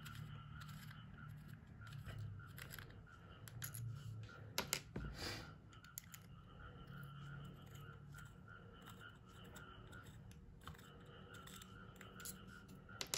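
Small screwdriver turning out the tiny battery-cover screws on a compact red dot sight, heard as faint metal scraping and light clicks, with a louder cluster of scrapes about five seconds in and a click near the end.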